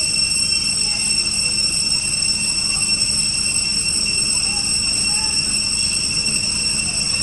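A steady high-pitched whine with several overtones, unchanging, over a constant low rumble.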